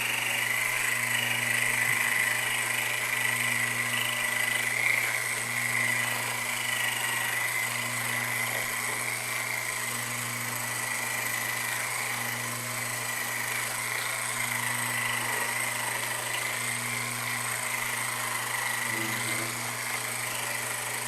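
Electric massager running steadily against the patient's back muscles during soft-tissue work, a continuous motor hum.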